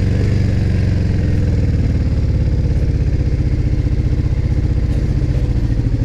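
Yamaha DragStar 400's V-twin engine idling with an even, pulsing exhaust beat.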